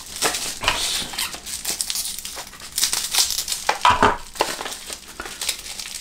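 Clear plastic wrapping around a tube of thermal paste crinkling as it is handled and pulled open, in irregular crackles with louder flurries about one second and four seconds in.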